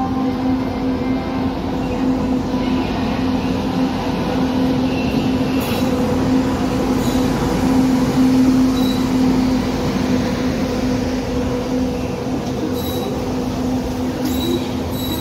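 WAP-7 electric locomotive hauling an express train as it pulls in alongside the platform: a steady hum over the rumble of the wheels, loudest about eight seconds in as the locomotive passes, then the coaches rolling by.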